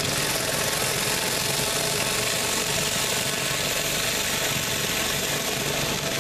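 Mi-T-M 20-inch surface cleaner being pushed over concrete, its spinning spray jets hissing steadily on the surface, over the drone of the pressure washer's engine.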